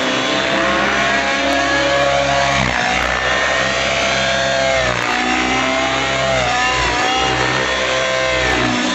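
Miniature Aircraft Stratus RC helicopter's engine and rotor running hard through 3D manoeuvres. The note drops and recovers about every two seconds as the load changes.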